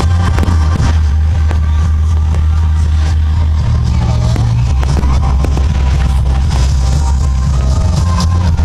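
Loud music with a heavy, steady bass line, with sharp firework cracks and pops scattered over it.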